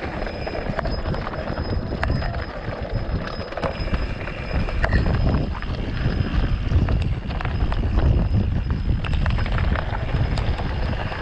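A mountain bike rattling and knocking as it rolls over rough ground, with a heavy low rumble of wind buffeting the microphone.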